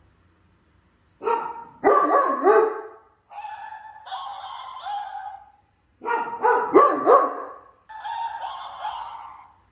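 A Doberman barking and yipping in two short bouts, about a second in and again around six seconds in. Each bout is followed by a quieter, steadier high-pitched held sound.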